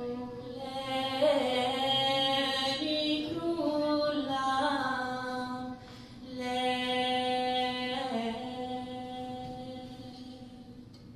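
Slow, chant-like solo singing in long held notes that slide between pitches, with a short break about six seconds in and a fade near the end.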